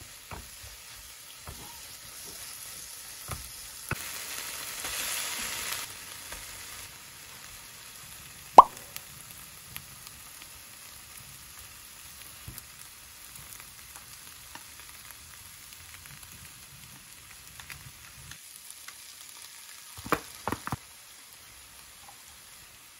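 Kimchi and onions, later joined by rice and ground meat, sizzling in a nonstick frying pan as they are stir-fried with a plastic spatula. The sizzle swells for a couple of seconds about four seconds in; a single sharp knock about a third of the way through is the loudest sound, and a quick cluster of clicks comes near the end.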